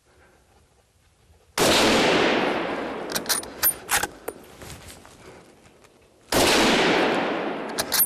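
Two gunshots about five seconds apart. Each is sudden and loud, with a long echo dying away through the forest, and a few sharp clicks follow each shot.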